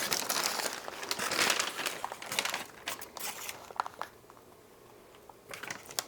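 Packing material crinkling as a shipped plant is unwrapped by hand: dense rustling for the first few seconds, then a few scattered crinkles, a short lull, and another rustle near the end.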